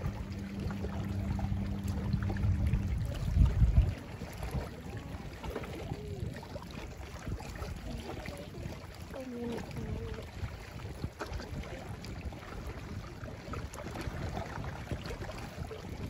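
A motorboat engine hums steadily, then cuts off suddenly about four seconds in. After that, quieter water lapping at the rocks, with small clicks of shells and stones handled by hand.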